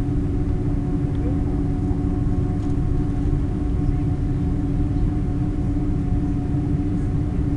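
Airbus A330 engines at low thrust heard from inside the cabin during taxi: a steady low rumble with a constant hum over it.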